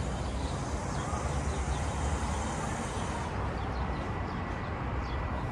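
Steady outdoor background noise with wind rumbling on the microphone, a distant hum of traffic and faint short high chirps.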